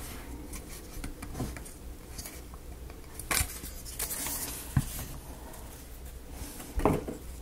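Small wooden model-kit pieces being handled and pegs pressed into place: light rubbing with a few sharp clicks and taps, the loudest near the end.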